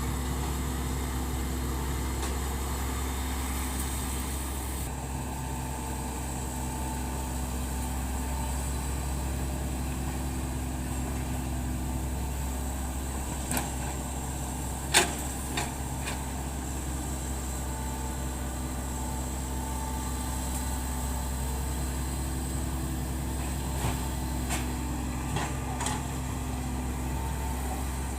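Hitachi Zaxis 110 excavator's diesel engine running steadily, with a few sharp knocks, the loudest about halfway through and several more near the end.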